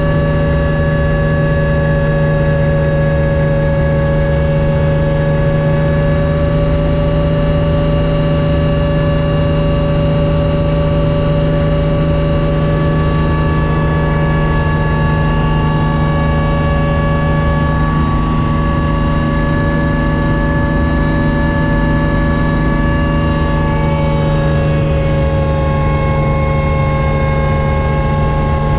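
Hummingbird helicopter in flight, heard from inside the cabin: a loud, steady engine and rotor drone with a low hum and several steady whining tones above it.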